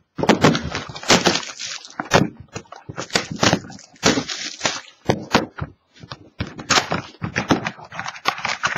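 Clear plastic shrink wrap crinkling and tearing as it is stripped off a sealed cardboard box of trading cards, in irregular crackling bursts.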